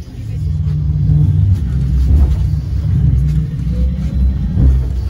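Low rumble inside a moving trolleybus, from its tyres and running gear on the road, growing louder over the first second.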